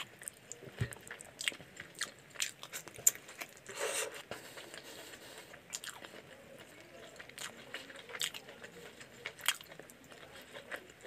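Close-up eating of chicken curry and rice by hand: chewing with many short wet mouth clicks and smacks, and a longer noisy chew about four seconds in.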